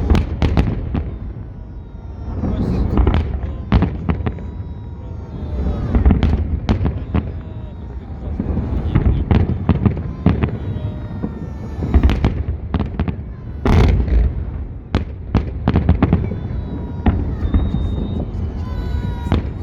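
Large fireworks display: shells bursting in rapid, irregular bangs over a continuous low rumble, with crowd voices underneath.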